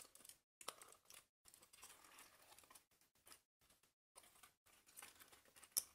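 Faint rustling, crackling and clicking of paper 3D puzzle pieces being handled and pressed into place on a stadium model, coming in short patches with a sharper click near the end.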